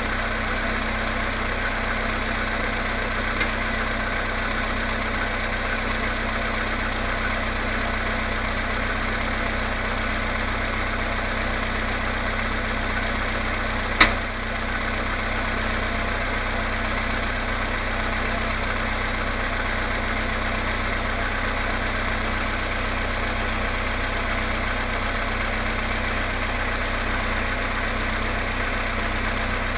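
Volkswagen Polo Sedan engine idling steadily with the knock of a cold engine after standing overnight near freezing. One sharp click about halfway through.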